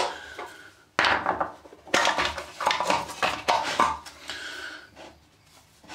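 Clanks and scrapes as the cast metal cover of a neon sign transformer's housing is taken off, with sharp knocks about one and two seconds in, then smaller rattles that die away.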